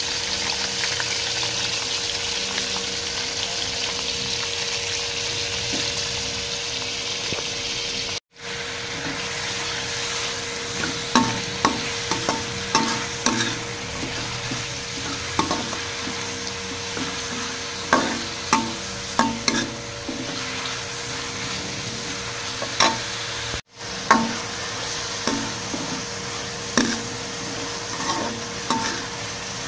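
Sliced onions sizzling in hot oil in a metal pan. From about ten seconds in, a spoon stirring them clinks and scrapes against the pan again and again. The sound cuts out briefly twice.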